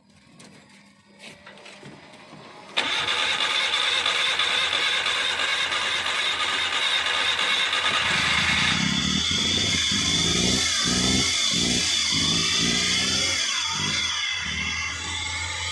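Starter motor cranking a Suzuki K6A three-cylinder engine, kicking in suddenly about three seconds in and running on for a long crank. From about halfway an uneven low pulsing joins as the engine fires raggedly without settling: the hard-starting fault being diagnosed.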